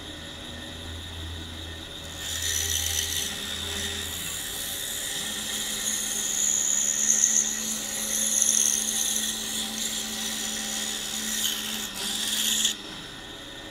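Pegas scroll saw cutting through a small block of buckeye. The saw runs steadily, and about two seconds in the blade bites into the wood with a hissing cutting noise that swells and eases for several seconds, then stops abruptly near the end as the cut finishes.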